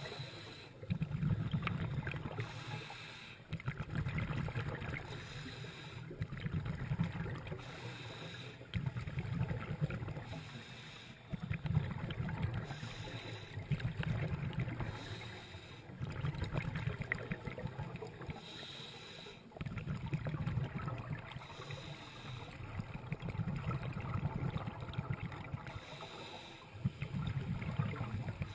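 A scuba diver's regulator breathing, heard through the camera housing underwater. Bursts of exhaled bubbles, each about two seconds long, alternate with short hissing inhalations, repeating every few seconds.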